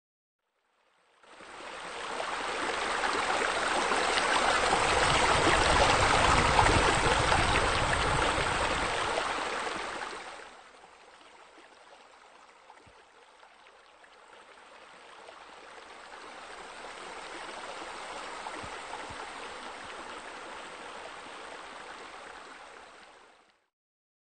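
Water running and splashing in a steady rush. It is loud at first, drops off sharply about ten seconds in, comes back more softly, then cuts out near the end.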